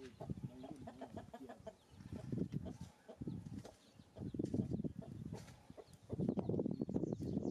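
Chickens clucking on and off in short runs of low calls.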